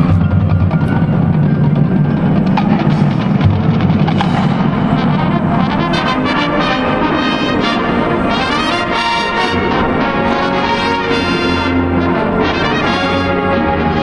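High school marching band playing its field show: brass and drumline together, with heavy drum hits for the first few seconds, then the horns moving into long held chords.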